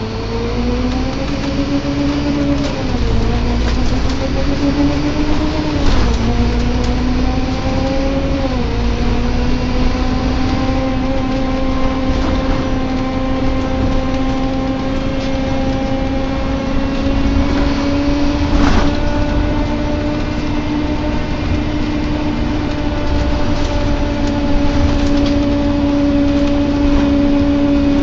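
Scania Omnilink bus (K230UB) heard from inside the saloon, with a loud groaning drone that climbs in pitch as the bus picks up speed, sags and recovers about three times, then holds at a steady pitch while cruising. A single knock sounds about two-thirds of the way through.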